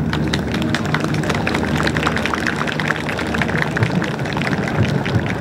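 Crowd applauding in a dense, steady patter of clapping at the end of a fireworks display, over a low steady engine hum.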